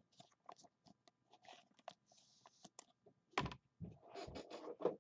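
Trading card being handled and slid into a clear plastic sleeve: soft clicks and crinkling of plastic, a sharp tap about three and a half seconds in, then about a second of rustling near the end.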